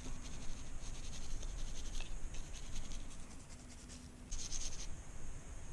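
Toothbrush bristles scrubbing the steel slide of a Smith & Wesson M&P Shield .40 pistol to brush off gunpowder residue, in rapid scratchy strokes. A short pause comes before a final, louder burst of scrubbing near the end.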